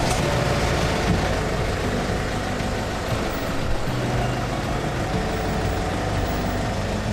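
Cargo van's engine running steadily at low speed while the van is manoeuvred slowly in reverse.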